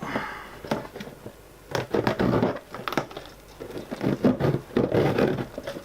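Irregular rustling, crinkling and light clicks of plastic packaging and small heater-kit parts being handled, in several short bursts.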